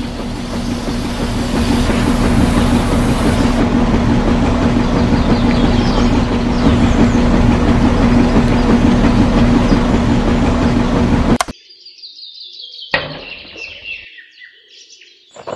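Small electric motor of a model drilling rig running steadily with a strong, even hum, cutting off suddenly about eleven seconds in.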